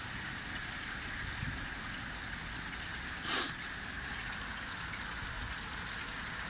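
Heavy rain pouring down in a steady hiss. About halfway through there is one brief, louder burst of noise.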